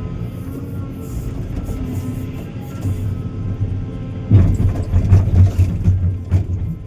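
Diesel excavator engine working, growing louder and rougher about four seconds in, with background music.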